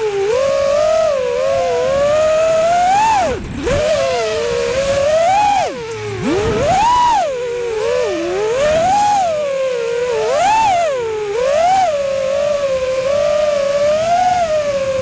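5-inch FPV freestyle quadcopter's brushless motors and propellers whining, the pitch sweeping up and down constantly with the throttle. The whine drops away sharply twice, about three and a half and six seconds in, as the throttle is chopped, then climbs back.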